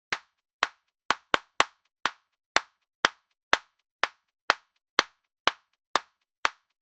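A single person clapping hands in separate sharp claps, about two a second, with three quicker claps about a second in.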